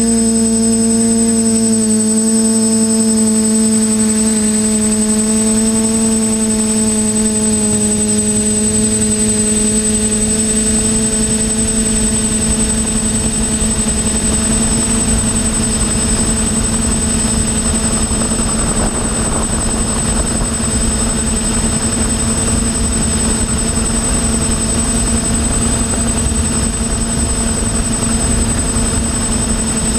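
Brushless motors and propellers of a Team Black Sheep Discovery quadcopter in flight, heard through its onboard GoPro: a steady pitched hum with a high whine above it, the pitch easing down a little over the first several seconds. Wind rush on the microphone grows stronger in the second half.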